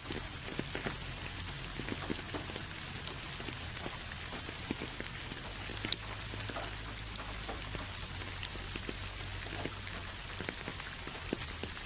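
Steady rain, with many separate drops ticking on a surface over a continuous hiss and a low steady rumble underneath.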